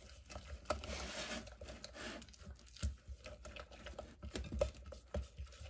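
A white spatula stirring a thick mix of soap, water and ground coffee in a glass Pyrex measuring cup: soft scraping with scattered light clicks and taps against the glass.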